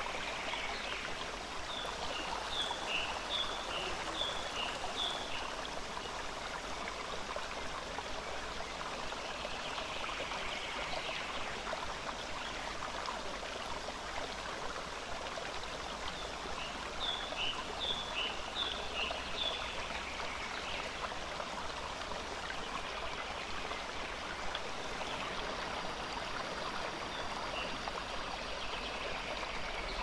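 Shallow stream running steadily over a rocky bed, with two runs of short, high bird chirps, one a few seconds in and one around the middle.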